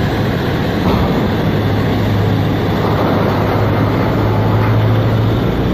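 Large mining haul truck running, its diesel engine a steady low drone under heavy, even rushing noise.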